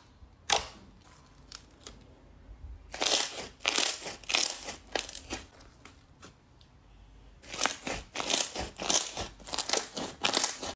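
Slime being poked and squeezed by hand: a single sharp pop near the start, then two long runs of rapid crackling, squelching pops, the second lasting until the end.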